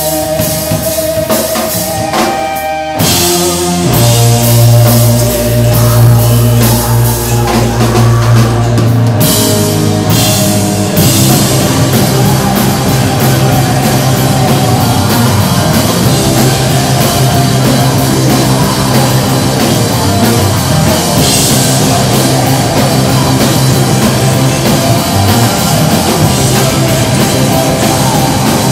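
Live heavy rock band playing loudly on electric bass, guitar and drum kit with cymbals. Sparse held notes open it, and a few seconds in the full band comes in with heavy, sustained low notes.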